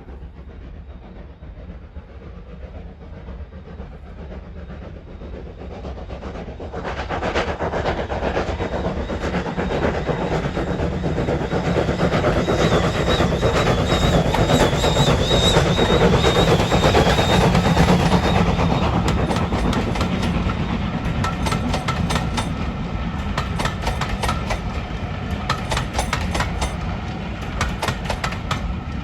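Heritage steam-hauled train approaching and running past, building to its loudest about halfway through. Its wheels then clatter over the rail joints in quick clicks as the rest of the train goes by.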